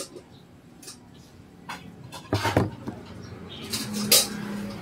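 Kitchen items being set down on a tabletop: a sharp knock about halfway through and another clatter near the end, as a plastic cutting board is put in place.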